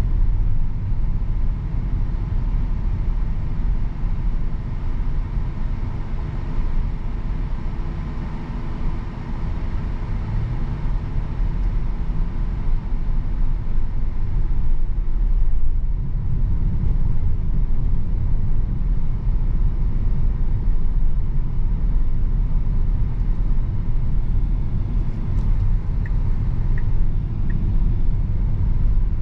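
Cabin sound of a 2023 Tesla Model Y Performance electric car driving at road speed: a steady low rumble of tyres and road, with no engine note.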